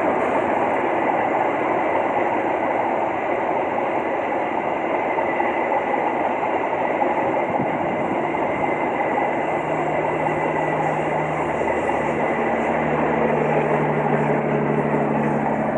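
Passenger train coaches rolling past on the rails, with a steady loud rushing of wheels on track. From about ten seconds in, a steady low engine hum joins.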